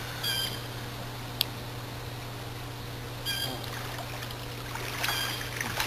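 Pool water splashing and sloshing as swimmers move through it, over a steady low hum.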